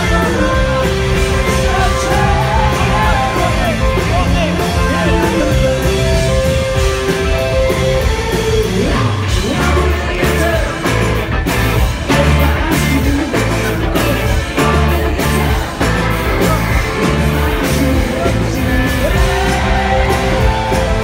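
Live rock band playing loud with electric guitars, a steady beat and singing; the singing is strongest in the first half and again near the end.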